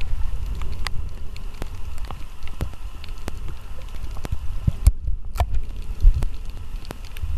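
Sound picked up by a camera underwater in the sea: a low muffled rumble of water moving around the housing, with irregular sharp clicks and crackles throughout. The higher crackle briefly drops out about two-thirds of the way through.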